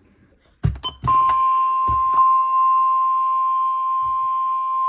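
NOAA Weather Radio 1050 Hz warning alarm tone sounding for the required weekly test: a loud, steady single-pitch tone that starts about a second in, after a few sharp clicks, and holds unchanged.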